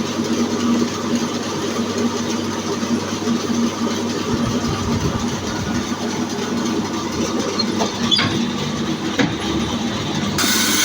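Electric horizontal band sawmill running steadily, with a couple of short knocks about eight and nine seconds in. Shortly before the end the sound changes abruptly to a brighter, hissier run.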